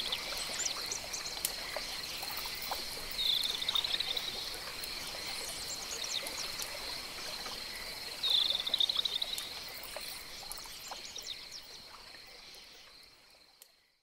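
Jungle pond ambience: a continuous high-pitched chorus of calling animals with a steady whine, two louder trilling calls about three and eight seconds in, and scattered short chirps. It fades out over the last few seconds.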